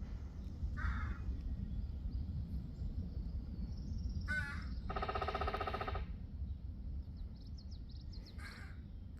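Raven calling: one long, loud call about five seconds in, with shorter, fainter calls before and after it, over a low rumble on the microphone.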